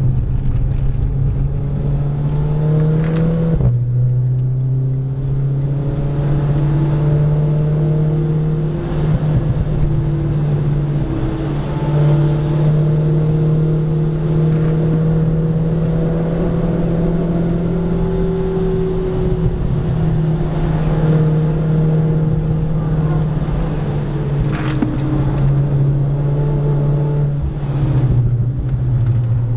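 Renault Clio RS IV's turbocharged four-cylinder engine under hard acceleration on track. Its pitch climbs through the revs and drops abruptly at an upshift about four seconds in, and again near the end, with long slow swells in engine note between.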